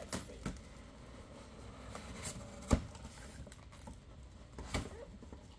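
Cardboard box being opened by hand: packing tape peeled from the seam and the flaps pulled apart, giving scattered crackles and sharp clicks. The loudest crack comes a little under three seconds in.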